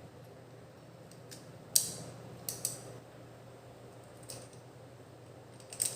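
A few sharp clicks and taps from PC parts being handled, loudest about two seconds in, over a faint steady hum.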